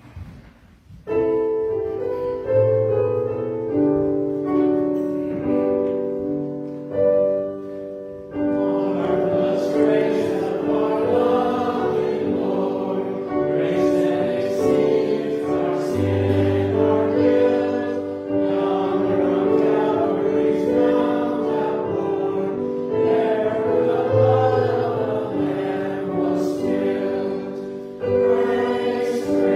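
Choral music: a choir singing slow, sustained chords. The music starts about a second in and grows fuller about eight seconds in.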